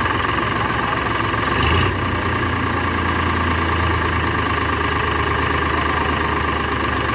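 Eicher 557 tractor's three-cylinder diesel engine running steadily while its hydraulics raise the tipping trailer bed to dump soil, with a brief louder clatter about two seconds in.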